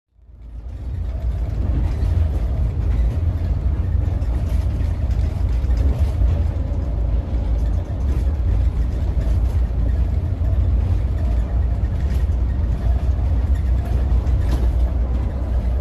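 Mercedes-Benz O500R 1836 coach under way: a steady low rumble of engine and road noise, fading in during the first second.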